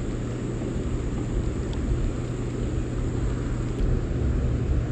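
Steady low rumble with a constant low hum from the hydroelectric dam running one generator, with the water moving below it.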